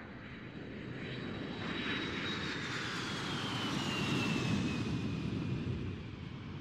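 Jet airliner flying past: a low engine rumble swells to its loudest about four seconds in and then eases, while a high engine whine glides down in pitch as it goes by.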